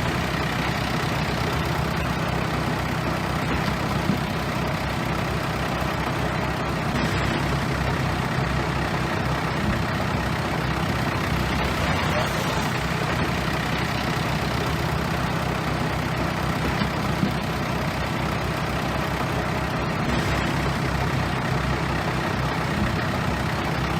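Bulldozer's heavy diesel engine running steadily under work, a continuous low engine drone with dense mechanical noise over it.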